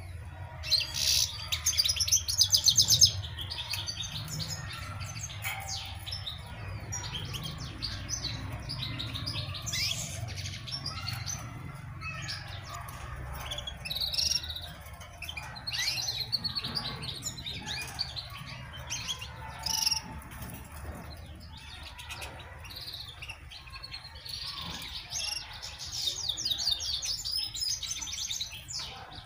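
European goldfinches singing: fast twittering song phrases, loudest in the first few seconds and again near the end.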